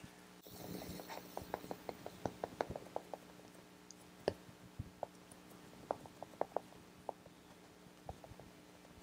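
Silicone makeup sponge being patted against the face: quick runs of small soft taps, about five a second for the first couple of seconds, then scattered single taps.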